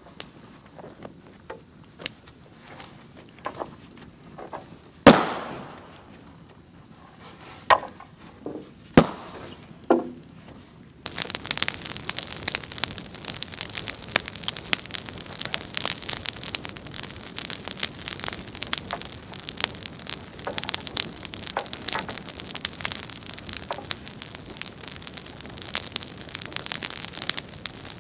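A steady high insect buzz with scattered sharp knocks and cracks. About eleven seconds in it gives way abruptly to a dense, continuous crackling patter.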